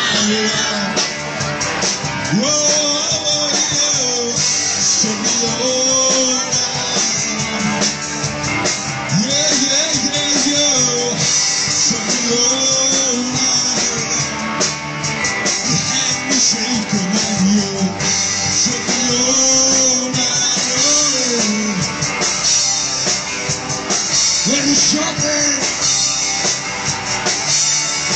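Live rock band playing loud and without a break: a singing voice over electric guitar and a drum kit with busy cymbals.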